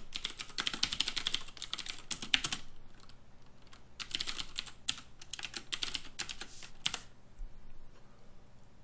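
Typing on a computer keyboard, with quick keystrokes in two bursts; the second burst stops about seven seconds in.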